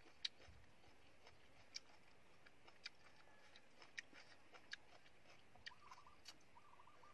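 Faint eating sounds: chopsticks and mouth clicks as stir-fried water spinach is picked up and chewed, about seven sharp clicks roughly a second apart over low hiss. A faint warbling call comes in near the end.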